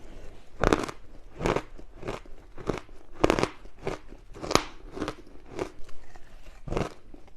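Frozen matcha ice being bitten and chewed up close, a series of sharp, irregular crunches about once a second.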